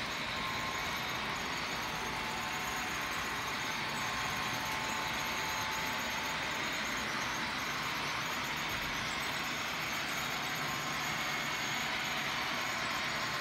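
Model freight trains running around a layout: a steady running noise of the locomotive motors and the wheels rolling on the track, with faint steady whines.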